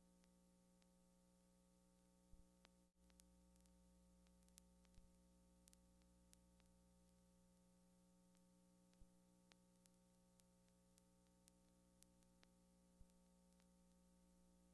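Near silence: a faint steady hum with scattered small clicks.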